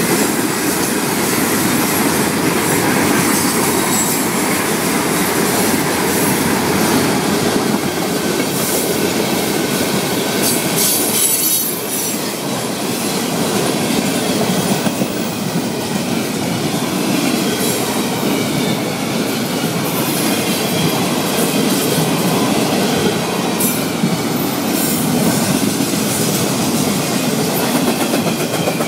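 Florida East Coast Railway freight cars rolling past close by, open hoppers and then double-stack container well cars: a steady, loud noise of steel wheels running over the rails, with a short dip about twelve seconds in.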